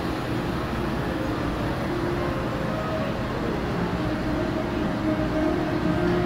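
Steady hubbub of a busy indoor market hall: an even background din with faint, indistinct snatches of distant voices.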